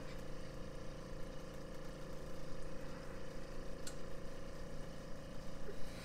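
A steady machine hum, a constant mid-pitched tone over a low rumble, with a faint click about four seconds in.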